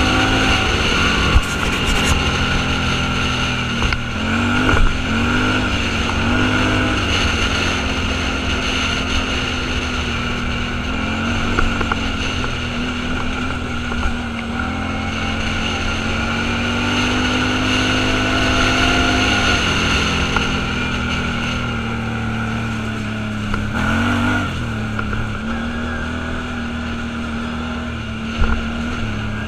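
Off-road vehicle's engine running steadily while driving, its pitch rising and falling with the throttle, with a few sharp knocks along the way.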